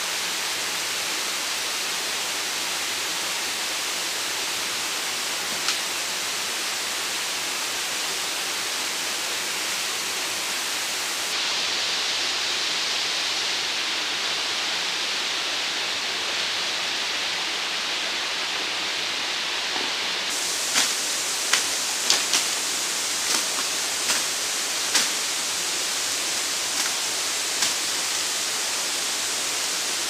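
Steady rushing of a shallow rocky stream, with a run of about ten sharp knocks and snaps in the last third.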